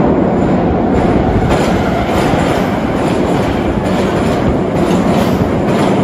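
Subway train passing close by in the tunnel: a loud, steady rumble with sharp clacks of the wheels over the rail joints.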